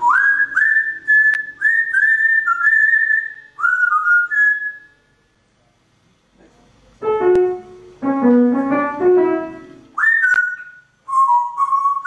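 African grey parrot whistling a tune: a run of clear notes, each sliding up at its start, then a pause. After the pause comes a lower, fuller-toned run of notes, and a few more whistles near the end.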